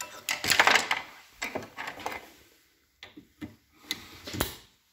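Spiral retaining ring being pried and worked out of its groove in a metal bore: an irregular run of metallic scrapes and clicks, with a sharp click near the end.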